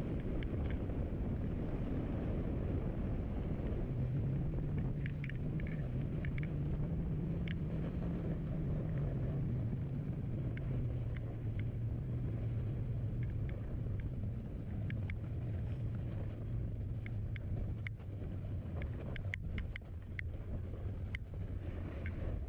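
Snowboard base sliding over packed snow, with wind on the action camera's microphone: a steady low rumble, with a faint hum that slowly drops in pitch and scattered short clicks near the end.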